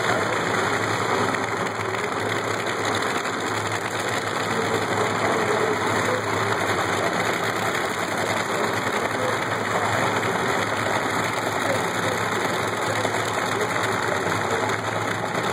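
Drag-racing Funny Car engines idling at the starting line, a steady rumble with no revving, mixed with crowd chatter in the grandstands.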